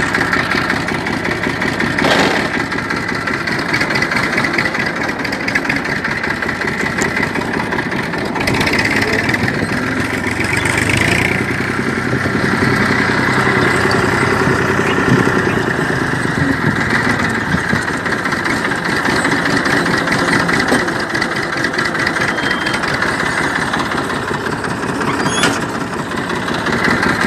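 Tafe 42 DI tractor's diesel engine running steadily while pulling a plough, with a brief knock about two seconds in and another near the end.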